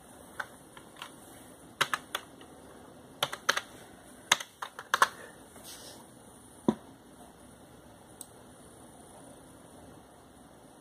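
Computer keyboard keys tapped in short, irregular clusters, a few keystrokes at a time, with one louder click about seven seconds in; the last few seconds are mostly quiet.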